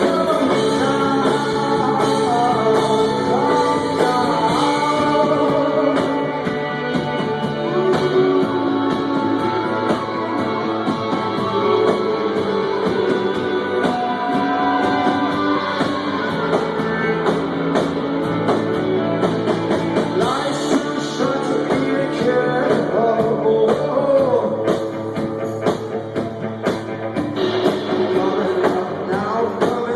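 Indie rock band playing live: a male lead singer over electric guitars, bass and drums, with a steady drum beat.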